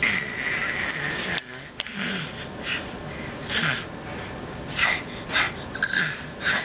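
A baby vocalising: one drawn-out high squeal lasting about a second and a half, then a string of about six short, breathy high-pitched sounds.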